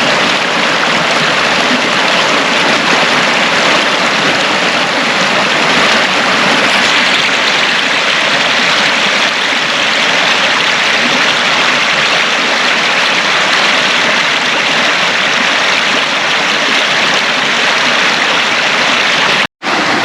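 Tank Creek rushing over rocks: a loud, steady rush of flowing water that cuts out suddenly for a moment near the end.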